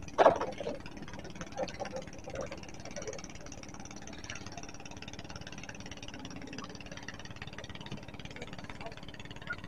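A cast from a small wooden boat, with a sudden loud sound about a quarter second in, followed by a few scattered quieter knocks and splashes as a wooden paddle works the water, over a faint steady hum.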